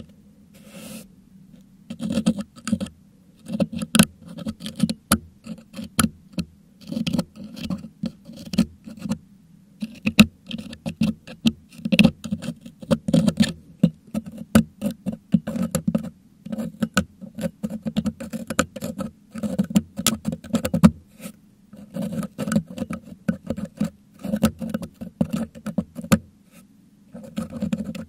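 Metal dental hook scraping and clicking against a Blue Yeti microphone's metal grille, picking out crushed meringue: rapid, irregular scratching and ticking close to the mic, in bursts with a few short pauses.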